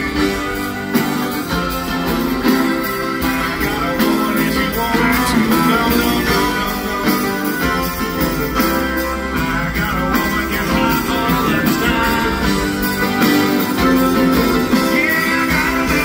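Rock band playing live: guitars with drums and bass in an instrumental passage.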